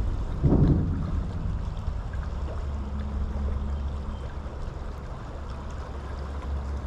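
Flowing river water, with a low wind rumble on the microphone. A brief louder rush comes about half a second in.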